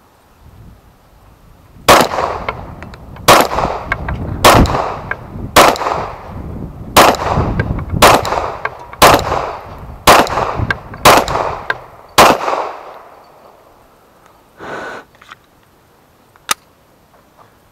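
A 9mm Glock pistol fired ten times at a slow, steady pace of about one shot a second, each shot followed by a short echo. A softer thud and a single click follow a few seconds after the last shot.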